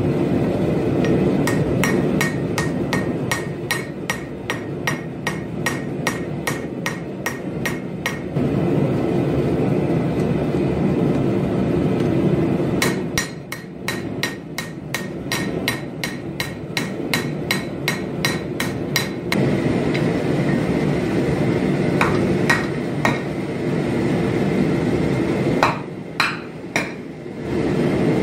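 Hand hammer striking a hot laminated 1084/15N20 steel blade on an anvil during forging: a run of quick blows at about three a second, a pause of a few seconds, then a faster run at about four a second, then a few scattered blows near the end. A steady rushing noise runs underneath.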